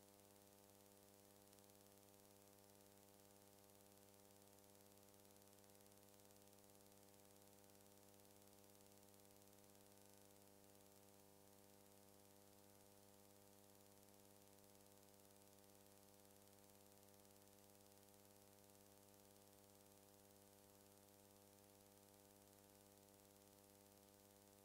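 Near silence: only a faint steady electrical hum with hiss, unchanging throughout.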